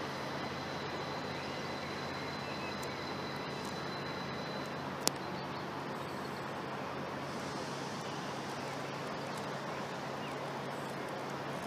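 A train's steady low hum and rumble, with one sharp click about five seconds in, where a faint high whine stops.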